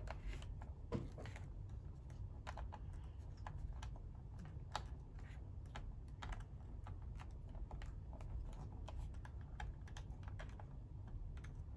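Irregular small clicks and ticks of a precision screwdriver and small screws against the plastic bottom case of a Lenovo ThinkPad T60 laptop as the screws are worked out and picked loose, over a low steady rumble.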